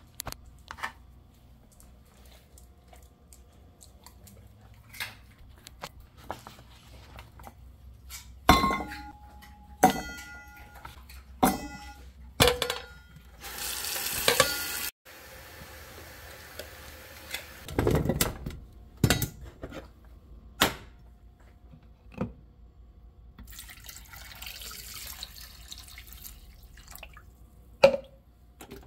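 Kitchen tap running into a stainless steel bowl of sweet potato chunks, with a series of ringing metal clanks as the bowl and pieces are handled. The water runs in two stretches of a few seconds.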